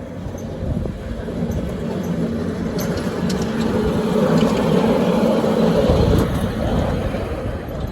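A 7.25 inch gauge miniature locomotive running under its own power. It makes a steady mechanical hum that grows gradually louder.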